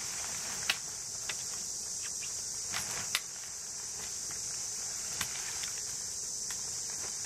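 Steady high-pitched chorus of insects such as crickets, with a few short sharp clicks and knocks scattered through, the loudest about a second in and about three seconds in.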